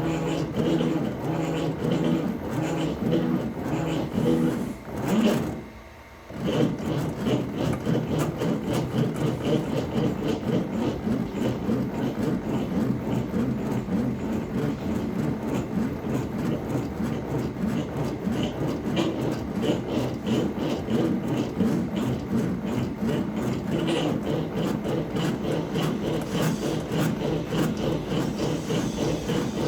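A machine working wood: a steady noise with a dense run of small ticks over a low hum. It stops briefly about five seconds in and starts again about a second later.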